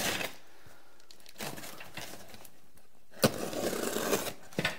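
A knife slitting the packing tape on a cardboard box: a sharp tap a little over three seconds in, then about a second of scratchy slicing along the tape, with a couple of small clicks near the end.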